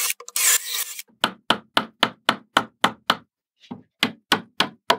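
Cordless drill briefly reaming out a tight hole in the plywood frame, two short bursts in the first second. Then a steady run of sharp hammer taps, about four a second with a brief pause near the middle, as the steel linear rod is driven into the tight hole.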